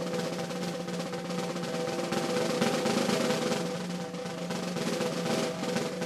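Opening of a music track: a steady, sustained snare drum roll with a low held tone underneath.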